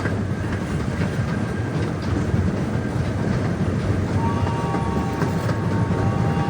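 Park tour train running along its track, heard from aboard: a steady low rumble with the clicks of wheels over rail joints. A faint thin whine joins about four seconds in.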